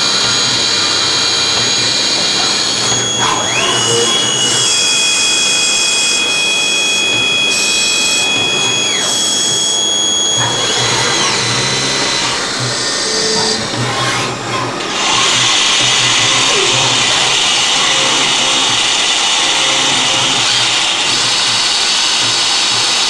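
Manurhin K'MX Swing Swiss-type CNC sliding-headstock lathe machining bar stock. Spindle and tool-drive motors whine at steady pitches that ramp up and down between operations, over a constant machining hiss. About fifteen seconds in, the hiss grows louder and brighter.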